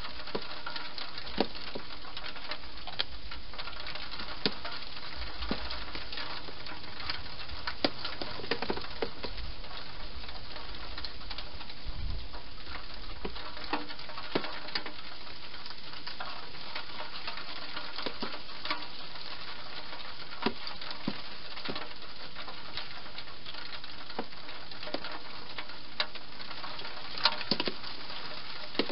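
Hedgehog eating inside a plastic feeding box: irregular small crunching clicks, a few in quick clusters, over a steady hiss.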